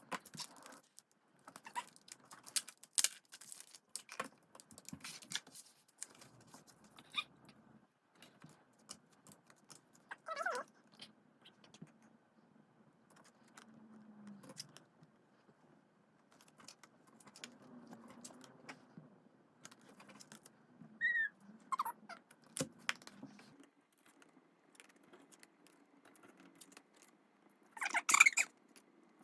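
K-pop album packaging being unboxed by hand: scattered clicks, taps and rustles of plastic and card. A couple of short high chirps come about two-thirds through, and a louder rustling burst near the end.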